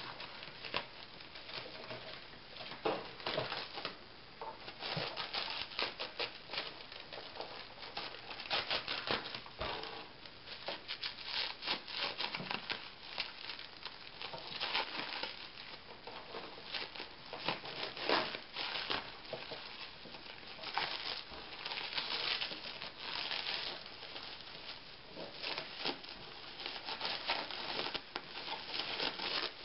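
Clear plastic wrap crinkling and crackling in a dense, irregular stream as it is picked at and peeled off a plastic-bodied appliance by hand, with brief tearing sounds.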